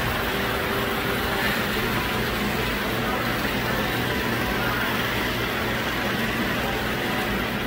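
Steady mechanical running noise of a miniature model train layout, with even background hum and no distinct clicks or knocks.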